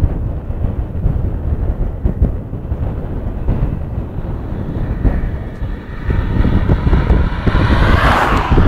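Wind buffeting the microphone, then a 2010 Toyota Corolla accelerating toward the microphone: from about five seconds in its engine note rises in pitch and grows louder, and it rushes past near the end.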